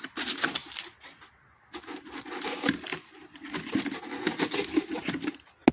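Cardboard shipping box being handled and opened by hand to get a pigeon out: irregular rustling, scraping and light knocks.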